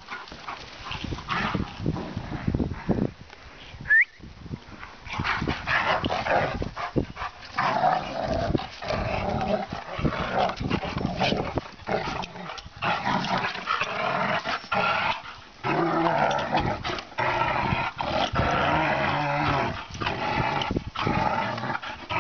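Two dogs, a German Shepherd and a black-and-tan dog, growling as they play tug-of-war over a toy. The growling becomes nearly continuous from about five seconds in, and there is a short high squeak about four seconds in.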